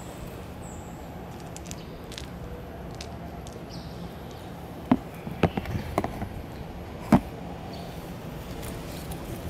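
Steady outdoor background hum with a few faint high chirps in the first few seconds, then a handful of sharp knocks about five to seven seconds in.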